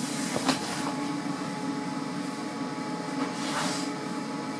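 A steady droning hum with a few steady tones in it, joined by a couple of light clicks about half a second in and soft swells of rustle or hiss.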